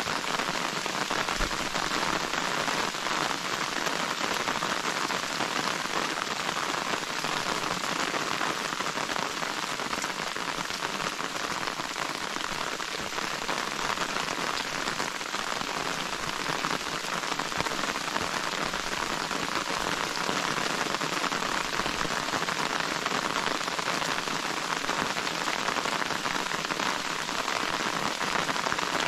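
Steady rain falling, an even, unbroken hiss of drops with no let-up.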